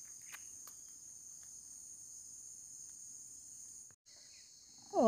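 Steady high-pitched chorus of insects singing in the forest, in several shrill bands. It cuts out briefly about four seconds in, then resumes.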